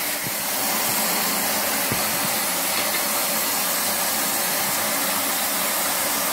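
Triton electric shower running, a steady hiss of water spraying. Its pressure relief valve has operated, so water is also ejected from the bottom of the unit instead of all going to the head.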